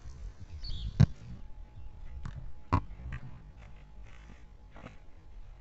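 Volleyball struck on the forearms in repeated solo forearm passes: sharp slaps about every one and a half to two seconds, the loudest about a second in, over low wind rumble on the microphone.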